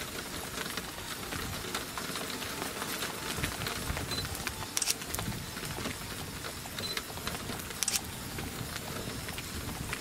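Steady hiss of wind and rain, broken by a few sharp clicks and two short high beeps.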